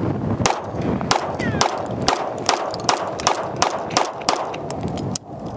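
Atlas Gunworks Erebus 4.6-inch compensated 2011 pistol fired ten times in a steady string, about two to three shots a second, starting about half a second in.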